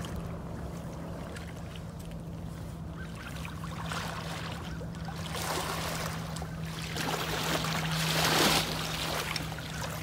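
Water sloshing and swishing around a person's legs as he wades through thigh-deep flood water in waders. It grows louder about four seconds in and again around seven to eight and a half seconds in, as he moves close past.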